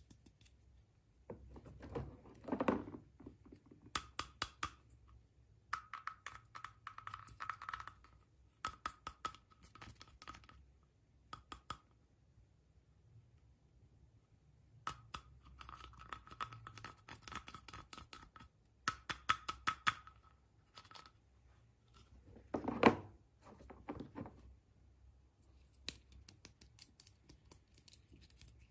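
Toy packaging being handled and opened by hand: bursts of crinkling, clicking and scratching, with two heavier knocks, one a couple of seconds in and a louder one near the end.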